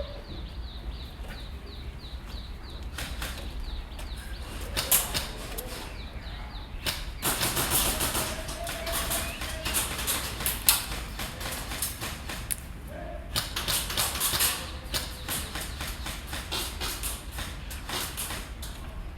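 Rustling of clothing and gear with a run of sharp clicks and knocks, thickening in the second half.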